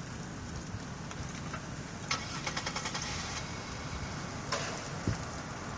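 Tractor fire burning with a steady low rumble. About two seconds in a sharp pop starts a second or so of rapid crackling, and another sharp crack comes about four and a half seconds in.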